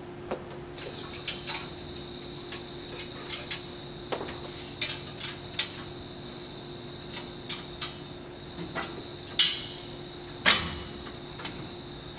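Irregular light clicks and knocks of hard objects being handled, with two louder clacks about nine and ten and a half seconds in, over a faint steady high whine.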